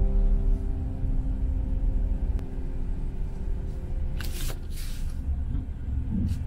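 Low, steady rumble of road noise inside a moving car's cabin, with two brief hissing rushes about four and five seconds in.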